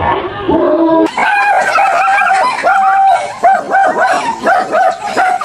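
Dog yelping and barking in a fast run of short, pitched calls, several a second, some drawn out a little longer.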